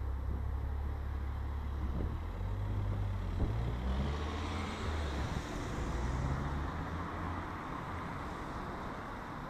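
Road traffic: a motor vehicle's engine runs low, its pitch shifting in steps, while tyre noise swells about halfway through as it passes.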